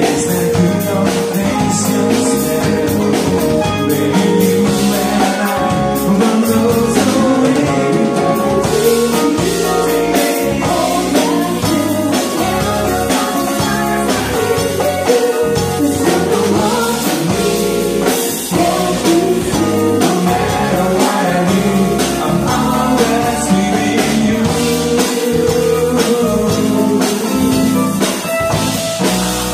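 Live band playing a song: a drum kit and guitar, with a voice singing.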